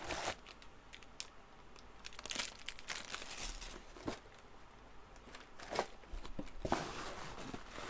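Cardboard shipping box and its packaging being opened and handled by hand: irregular rustling, crinkling and tearing with scattered taps and clicks.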